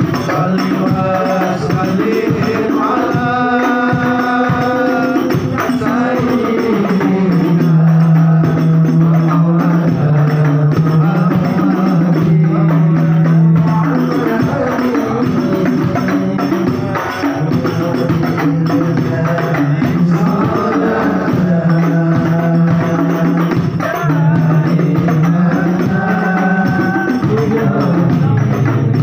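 A man singing a sholawat into a microphone in long, drawn-out held notes, over hadroh frame drums (rebana) beating a steady rhythm.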